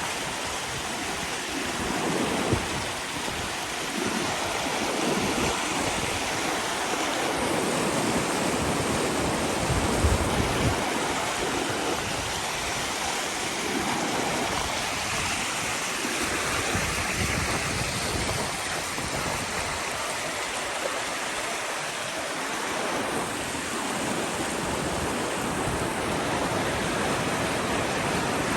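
Creek water rushing as a steady wash of noise, with brief low rumbles now and then, the strongest about ten seconds in.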